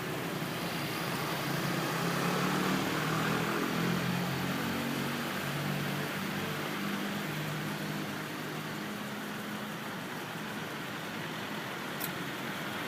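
A vehicle engine running steadily with a low, slightly wavering hum, and a single short click near the end.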